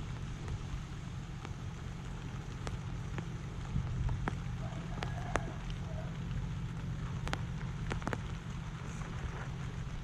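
Sparse raindrops ticking at irregular moments, about a dozen sharp ticks, over a steady low rumble of wind on the microphone.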